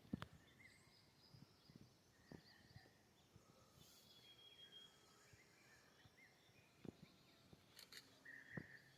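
Near silence in the open air, with faint, scattered short bird calls and a few soft clicks.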